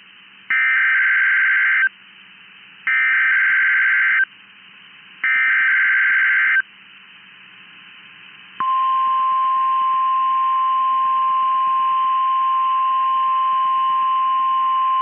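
NOAA Weather Radio Required Weekly Test received over a radio: three bursts of SAME digital header data, each about a second and a half long, about a second apart. About eight and a half seconds in, the steady 1050 Hz weather radio warning alarm tone starts and holds.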